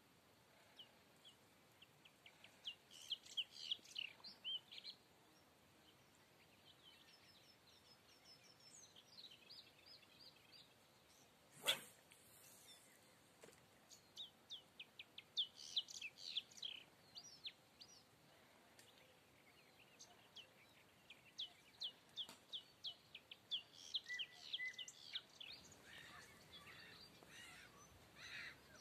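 Small birds singing faintly: runs of quick, high chirps in several phrases of a few seconds each. A single sharp click about twelve seconds in is the loudest thing heard.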